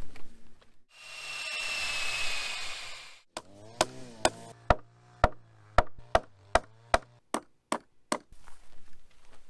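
A power drill runs for about two seconds, its whine dropping slightly as a cut-off nail used as a bit bores into fig wood. Then a hammer drives a nail into the wood with about a dozen sharp, ringing blows, two or three a second.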